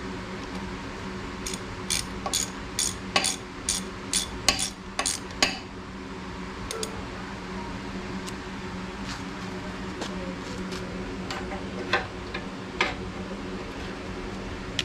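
Hand tools clinking on metal: a quick run of about ten sharp metallic clicks, two or three a second, then a few scattered ones, over a steady low hum.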